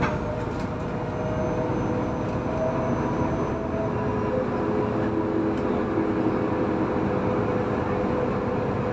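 Solaris Urbino 18 III articulated Euro 6 diesel bus heard from inside the passenger cabin while driving at a steady speed: an even engine and road rumble, with faint whining tones that come and go.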